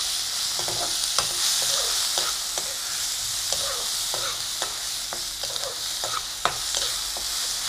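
Ground spice masala and crushed garlic frying in oil in a nonstick kadai, a steady sizzle, with a spatula scraping and tapping the pan about once or twice a second; the sharpest tap comes a little past six seconds. The masala is being sautéed until its raw smell cooks off.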